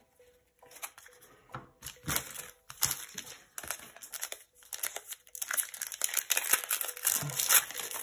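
Foil wrapper of a 2020-21 Upper Deck Series 1 hockey card pack crinkling as it is handled and torn open. A few faint ticks at first, then irregular crackling that grows denser and louder over the second half.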